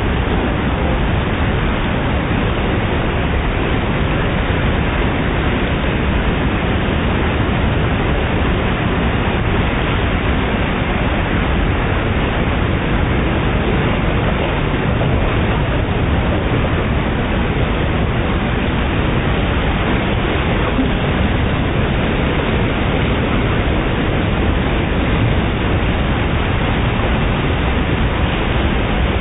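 Steady, loud rush of a big whitewater rapid on a fast mountain river: an even noise that doesn't let up.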